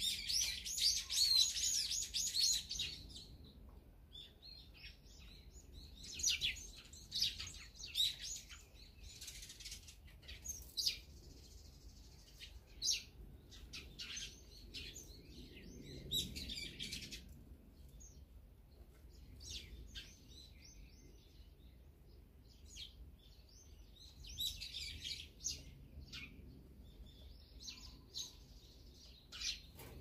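Small wild birds chirping and twittering in bursts, a dense, loud flurry in the first three seconds, then scattered calls and shorter flurries.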